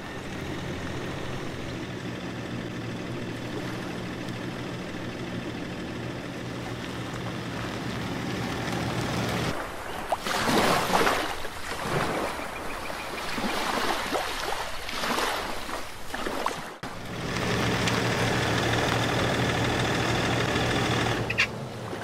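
Shallow surf washing over sand in irregular swells through the middle. Before and after it, a steady low hum runs under the noise of the sea.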